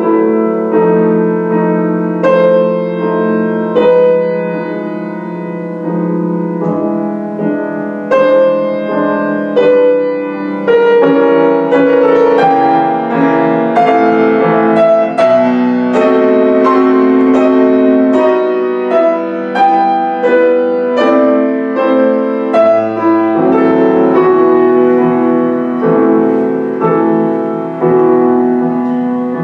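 Solo grand piano played continuously, with a run of struck notes and chords that grows fuller and louder about a third of the way in.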